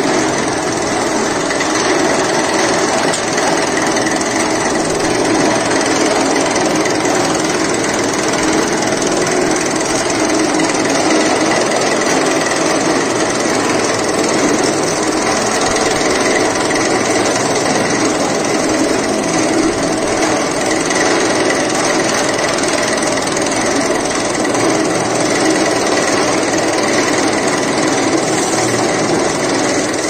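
Small chaff cutter running steadily, its rotating blades chopping green fodder as it is fed in. The machine noise is loud and unbroken.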